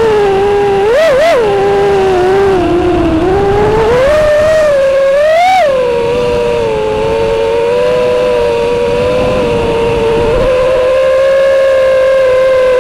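High-pitched whine of an FPV racing quadcopter's Dragonfly Hurricane 2207 2500KV brushless motors spinning three-blade props, heard from the onboard camera. The pitch follows the throttle: two quick blips about a second in, a dip, a sharp rise about five and a half seconds in, then a steady hold.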